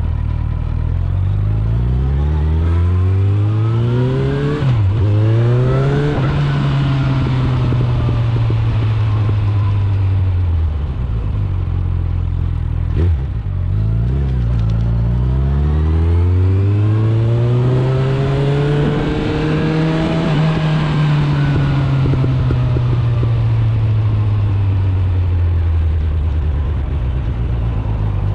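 Suzuki GSF 650 Bandit's inline-four engine through an Akrapovic exhaust, accelerating under way. The revs climb, break for an upshift about five seconds in, climb again and then ease off. Near the middle they drop briefly, then wind up again to a peak about twenty seconds in and fall away slowly.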